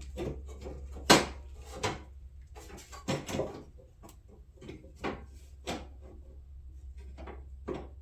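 Plastic engine-bay shroud pieces being handled and fitted against the car: a series of sharp clacks and knocks, the loudest about a second in, over a steady low hum.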